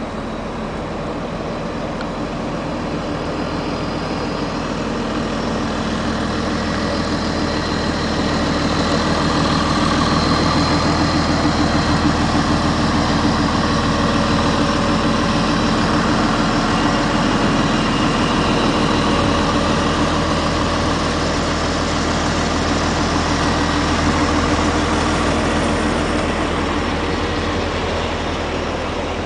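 Rear-mounted diesel engine of a 35-foot motorcoach idling steadily. It grows louder toward the middle as the rear of the coach is passed, then eases off again.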